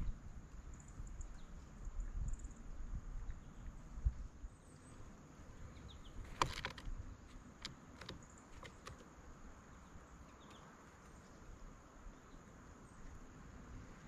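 Outdoor bird-feeder sounds: low rumbling thumps in the first few seconds, then a quick cluster of sharp clicks about six and a half seconds in and a few single clicks after, as a blue jay moves about on a mesh platform feeder of peanuts and seeds. A faint steady hiss runs underneath.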